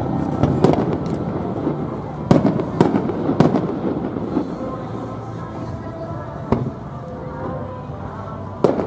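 Aerial firework shells bursting: a series of sharp bangs, about seven in all, most in the first three and a half seconds, then one about six and a half seconds in and another near the end.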